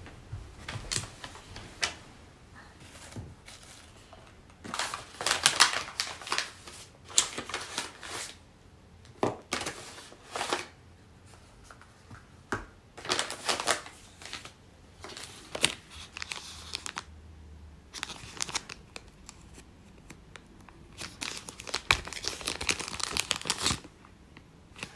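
Paper and plastic packaging being handled, crinkling and rustling in repeated short bursts as a medicine packet is opened and sorted.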